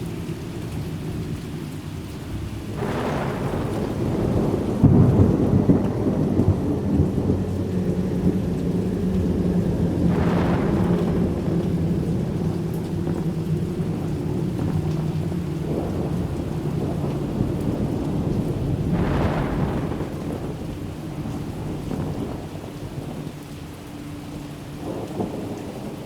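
Horror ambience: a dark, steady low rumble like a thunderstorm with rain, swelling three times about seven to eight seconds apart, then cutting off suddenly at the end.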